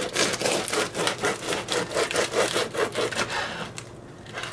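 A knife sawing back and forth through the crust of a round crusty bread loaf in quick, even strokes, about four a second. The strokes stop a little before the end as the top of the loaf comes free.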